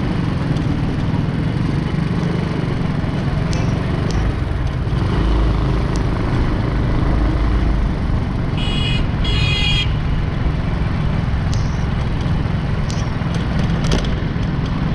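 Busy city road traffic heard while riding along: a steady low rumble of engines and road noise, with two short high-pitched horn toots about nine seconds in.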